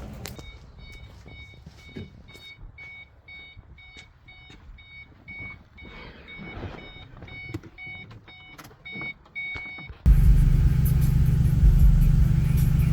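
Car warning chime beeping steadily, about two or three beeps a second, with a few clicks between; about ten seconds in, the Mustang GT's 4.6-litre V8 starts and runs with a loud, steady rumble.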